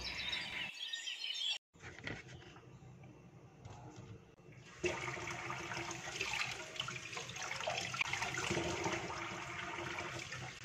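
Water running from a kitchen tap into the sink as mangoes are rinsed by hand in a plastic basket. It starts about five seconds in and then runs steadily.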